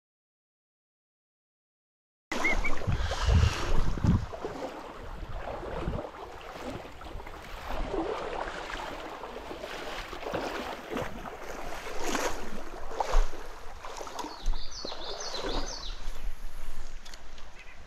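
A couple of seconds of dead silence, then the steady rush of stream water with irregular knocks and splashes close to the microphone. A few brief high chirps come just after the silence and again near the end.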